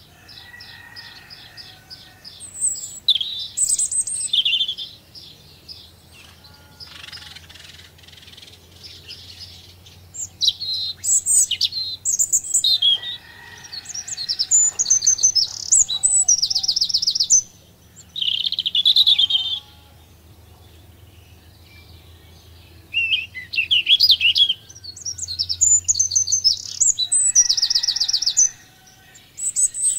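Several small songbirds singing in turns, a mix of quick chirps and rapid trills, phrase after phrase with short pauses between.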